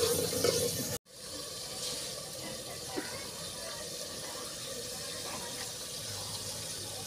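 Onion and tomato masala with a little added water simmering and sizzling in a metal pot over a wood fire: a steady, even hiss.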